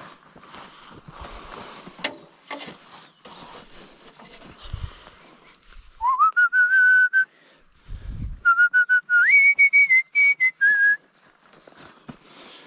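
A person whistling a few held notes. About six seconds in there is one note that slides up and holds. This is followed by a short tune of steady notes that step up in pitch and then come back down. Before the whistling there is soft rustling and a few clicks.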